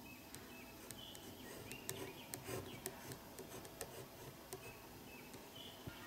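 Faint pen strokes on paper, light ticks and scratches, with faint short bird chirps in the background several times.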